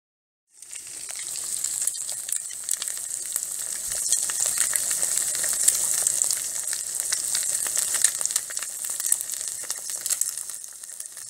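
Food frying and sizzling in hot oil: a dense crackle of many small pops over a steady hiss, fading in during the first second and dying down near the end.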